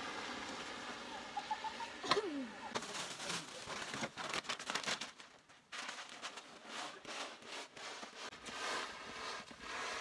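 Irregular crunching and scraping on packed snow, from sleds and footsteps, with a sharp knock and a short falling squeal about two seconds in.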